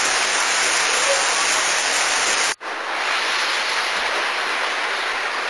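Steady, even hiss with no voices. It drops out for an instant about two and a half seconds in, then carries on a little quieter.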